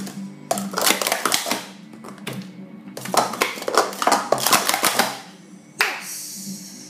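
Hard plastic sport-stacking cups clattering in rapid runs of clicks as they are upstacked and downstacked in a 3-6-3 sequence, then one sharp slap near the end as the hands hit the timer pads to stop the clock.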